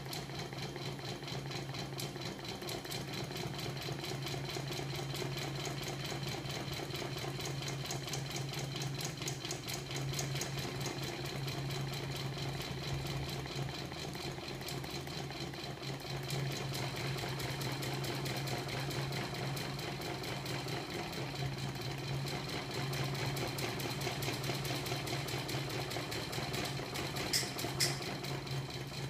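Homemade magnet-coupled crankshaft machine running on a small battery-powered electric motor: a steady mechanical whir with a low hum and a rapid fine clatter. Two sharp clicks sound near the end.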